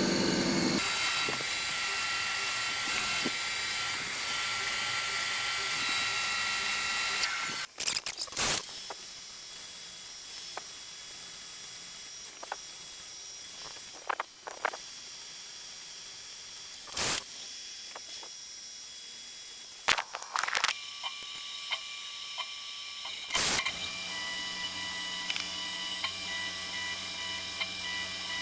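CNC machine running a part program. A steady machining noise stops abruptly about seven seconds in, followed by scattered sharp clicks and knocks. A steadier whine with held tones starts near the end.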